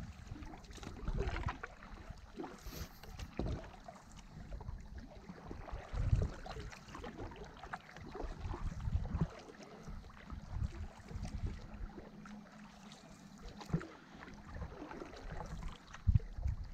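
Paddles stroking through calm river water from a tandem inflatable stand-up paddleboard, with irregular swishes, splashes and drips, and low knocks of the paddle and board.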